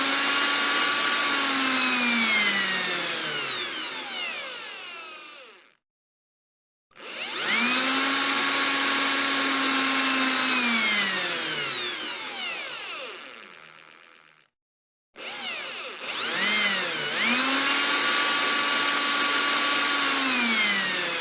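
Power drill motor whining at speed, then let go and spinning down to a stop. It is run twice more, each time spinning up quickly, holding a steady high whine and winding down, with a short blip of the trigger just before the last run.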